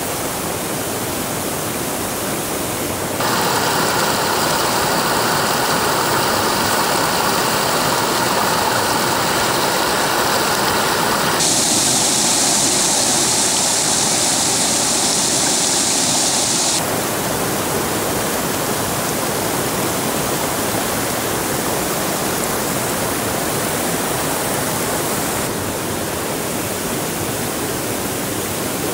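Steady rushing noise of falling or running water. Its tone shifts abruptly in blocks: about three seconds in it grows louder and brighter, around eleven seconds it turns hissier, near seventeen seconds it drops back to a duller rush, and it changes again near the end.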